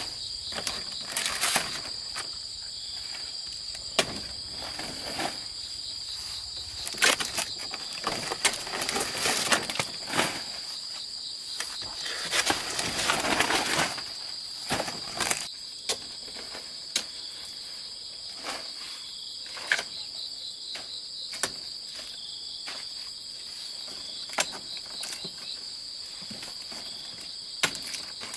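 Steady high-pitched chirring of insects, with scattered sharp snaps and knocks and a spell of rustling a little under halfway through as large banana leaves are pulled and handled.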